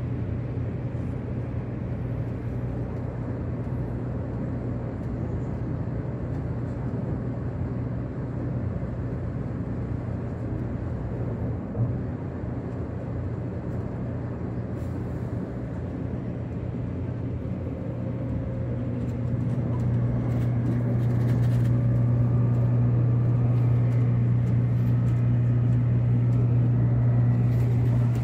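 Limited express Midori, a 783 series electric train, heard from inside while it runs along the line: a steady low running hum that grows louder about twenty seconds in, with a faint rising whine over the last seconds. There is one small knock about twelve seconds in.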